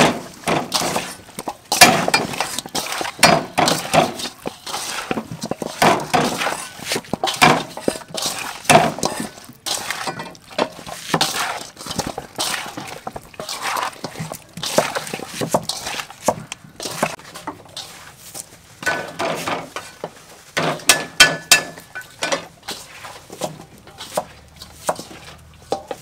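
Raw chicken drumsticks being mixed by hand with seasoning in a large metal bowl: irregular wet squelches and knocks of the meat against the bowl, with occasional clinks of the metal.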